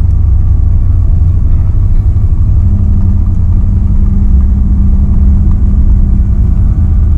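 Loud, steady low rumble inside the cabin of a Boeing 777-300ER rolling out on the runway after touchdown: its GE90-115B engines and the wheels on the runway. A lower hum joins in about three seconds in.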